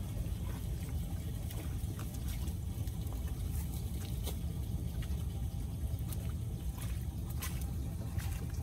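Floodwater trickling into a kerbside drain inlet as the debris clogging it is cleared, over a steady low rumble with scattered small clicks and splashes.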